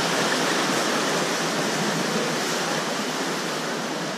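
Small waves washing and foaming over shoreline rocks: a steady rush of surf that eases slightly near the end.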